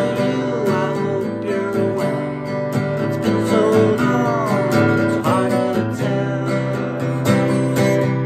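A man singing to his own strummed acoustic guitar. The singing stops about five or six seconds in, and the steady strumming carries on alone.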